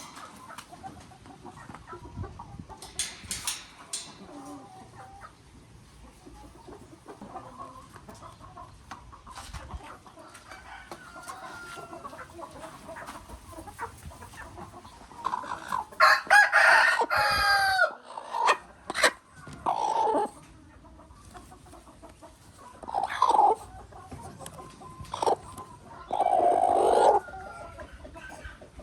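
Chickens clucking, with a rooster crowing loudly once about halfway through, followed by several shorter loud calls.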